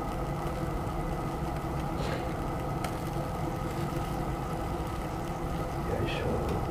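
A steady mechanical hum with several fixed pitches, like a motor or fan running, with a few faint light clicks.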